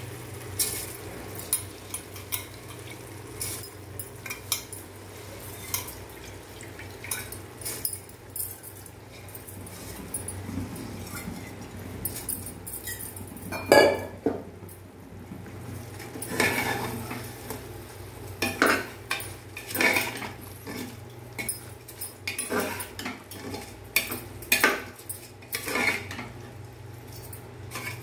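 A steel ladle scraping and clattering against the sides of an aluminium pressure cooker as a curry and then rice are stirred, in irregular knocks and scrapes, the loudest about 14 seconds in. A steady low hum runs underneath.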